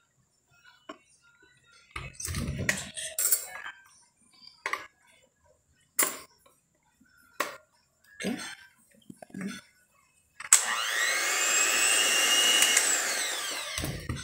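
Electric hand mixer running for about three and a half seconds, its motor whine wavering in pitch, then switched off. Before it, scattered knocks of kitchen things being handled.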